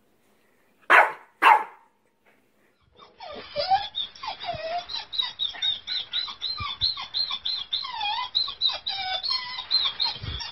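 Small dog barking twice in quick succession at its own reflection in a mirror. After a short pause, a continuous run of high-pitched squeaky yelps and whines begins about three seconds in and keeps going.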